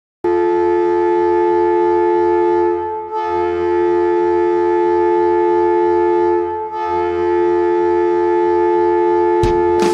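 Hockey arena goal horn: a loud air horn sounding a steady two-tone chord in three long blasts of about three seconds each, separated by brief dips.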